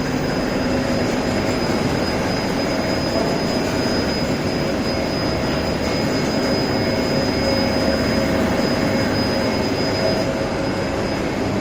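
UV lacquer coating line machinery running steadily, an even mechanical rush with a faint high whine, while particle board goes through for a second coat of UV sanding primer.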